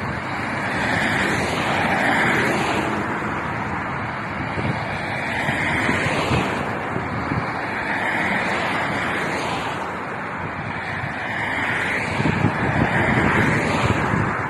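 Wind buffeting the microphone over a steady rushing roar. The gusts swell every couple of seconds and the buffeting thumps grow heavier near the end.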